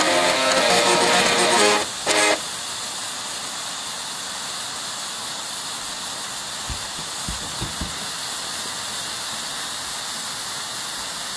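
Floppy disk drives' head stepper motors buzzing out the last notes of a tune, ending on a short final note about two seconds in that cuts off sharply. After it, the steady fizzing hiss of burning sparklers, with a few faint low thumps around seven to eight seconds.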